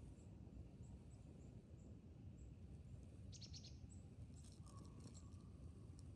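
Faint, short high bird chirps repeated every fraction of a second over a low steady rumble, with a brief burst of rapid clicking chatter about three seconds in.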